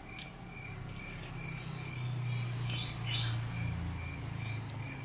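A steady night chorus of chirping creatures, about two high chirps a second, over a low hum that swells in the middle.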